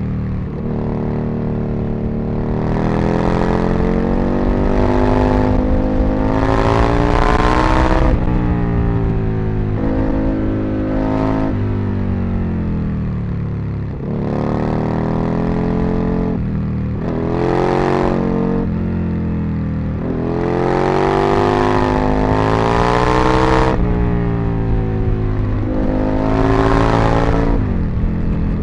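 Aprilia RSV Mille's 60-degree V-twin engine being ridden hard: the revs climb again and again and drop back as the bike accelerates and comes off the throttle.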